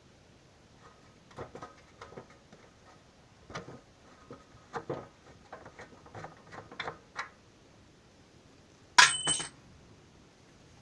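A wrench clinking on the motorcycle's seat-mounting bolt as it is undone: a string of irregular light metallic clicks and clinks. About nine seconds in comes one loud, ringing metal clank.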